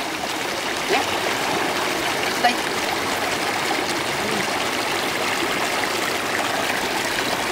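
Shallow stream rushing steadily over rocks through a narrow stone-lined channel.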